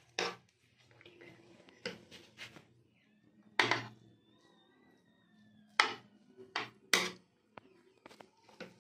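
Serving spoon knocking and scraping against an aluminium cooking pot and a plate while pulao rice is dished out: about six sharp clinks, spaced irregularly.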